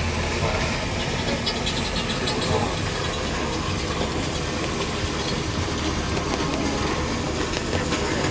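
Safari tour truck running as it drives along, heard from aboard the open-sided vehicle: a steady engine hum under an even wash of road noise.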